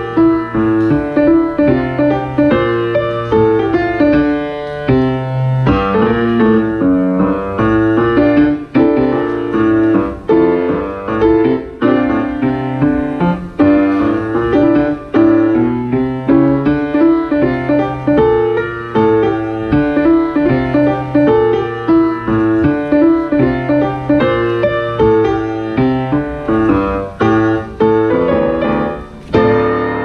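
Grand piano played solo: a lively run of short, detached notes over a steady bass line, getting softer near the end.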